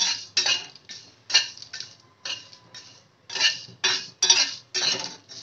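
Metal spatula scraping and stirring whole spices around a dry metal kadhai, about two strokes a second, with the seeds rattling against the pan as they dry-roast on a low flame.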